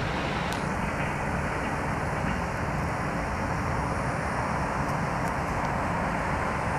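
Passenger train's coaches rolling by and away on the rails: a steady noise of wheels on track.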